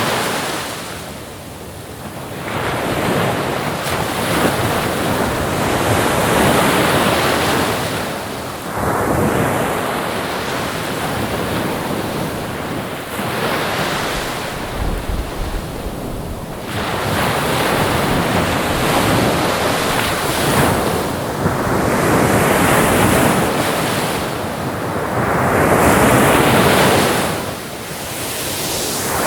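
Ocean surf: waves breaking and washing in, the rush of water swelling and fading in slow surges every few seconds.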